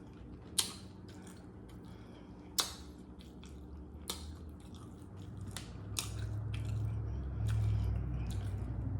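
Close-miked eating: a few sharp crunches and clicks spaced a second or two apart, with a low rumble building from about halfway through.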